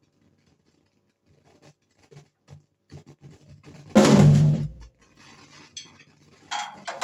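Drum kit: scattered faint taps, then one loud crash-and-bass-drum hit about four seconds in that rings out for under a second, with a smaller hit near the end.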